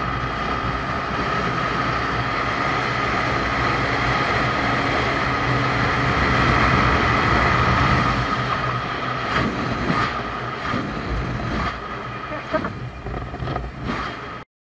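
A vehicle running at road speed, heard from a camera mounted on it: steady engine and road noise with wind on the microphone and a steady whine. In the last few seconds the noise turns uneven, with several knocks and bumps.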